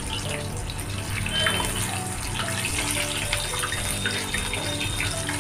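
Breaded chicken cutlets deep-frying in hot oil: a steady bubbling sizzle and crackle, the pieces cooking over low heat so the inside gets done.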